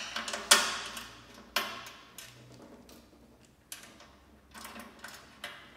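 Scattered sharp metal clicks and clinks of a washer and nut being fitted onto a bolt inside a bulk candy vending machine's cabinet, the loudest about half a second in.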